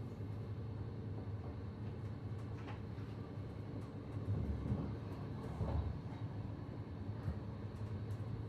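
Steady low rumble of a VR passenger train heard from inside a carriage, with a couple of louder low thumps around the middle.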